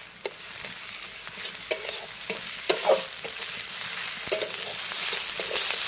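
Sliced onions with ginger and garlic paste sizzling in hot oil in a metal kadai, with a spatula scraping and knocking against the pan as it stirs. The sizzle grows louder as it goes.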